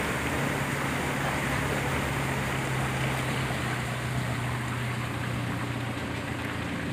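Fast-flowing floodwater rushing down a flooded lane in a steady, even rush, with a steady low hum underneath that stops near the end.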